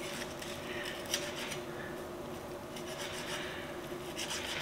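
Chef's knife cutting and scraping along the keel bone of a raw chicken on a plastic cutting board: faint scrapes and small clicks, with a sharper click about a second in, over a steady low hum.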